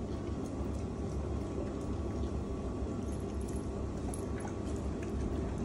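German shepherd eating chunks of raw meat from a bowl: wet chewing and mouth sounds with faint scattered clicks, over a steady low hum.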